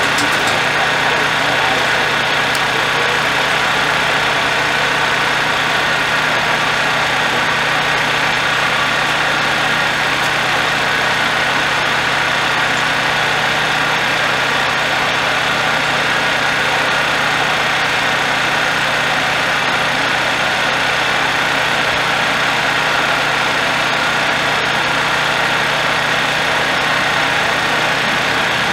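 Heavy-haul truck's diesel engine idling steadily, a constant low hum that does not change.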